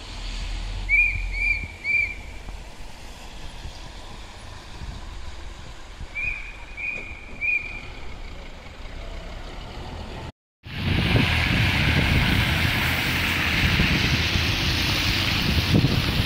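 Short high electronic beeps in two groups of three, about half a second apart, over a low street background. After a break partway through, a loud steady rushing noise of wind on the microphone takes over.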